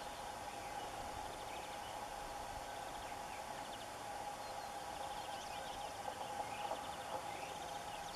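Open-field ambience with small songbirds singing faintly, several short rapid trills, over a steady hum.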